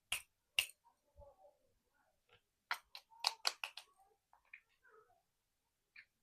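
Crackles of a plastic chocolate wrapper being handled and opened: two sharp crackles near the start and a quick run of about six around the middle, with faint rustling between.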